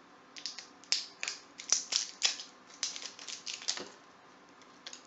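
Plastic squeeze bottle of chocolate syrup being handled and squeezed: a quick, irregular run of sharp clicks and pops for about three seconds, then one more click near the end.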